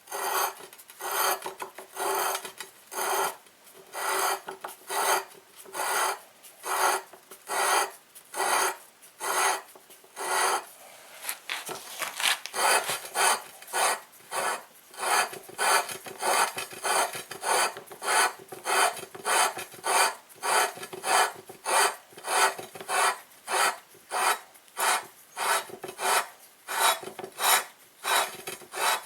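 Repeated back-and-forth rasping strokes of a hand tool, like filing or sawing. There are about one and a half strokes a second at first, quickening to about two a second past the middle.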